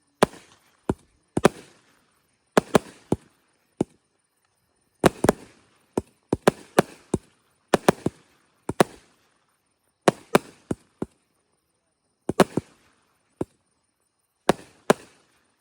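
Repeated aerial shot fireworks cake firing a string of sharp bangs, often two or three close together, every second or two. The volley stops shortly before the end.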